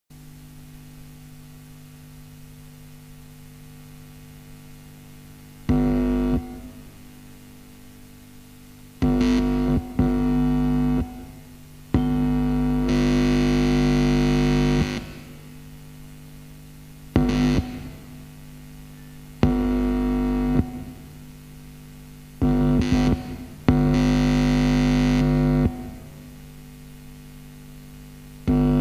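Experimental electronic music: a low, steady droning hum, with loud distorted blasts on the same pitch that cut in and out abruptly about eight times. Some blasts last under a second and others two to three seconds.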